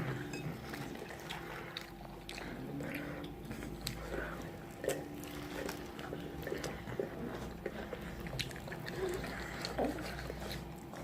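Close-up eating sounds: crunchy bites and chewing of fried food, with many short crackles.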